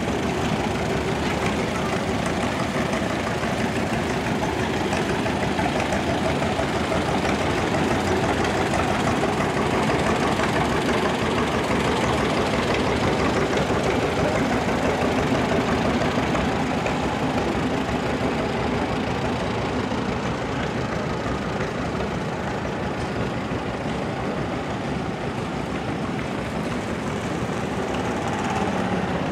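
Engines of several vintage farm tractors running together at low speed as they drive past, a steady mixed engine noise.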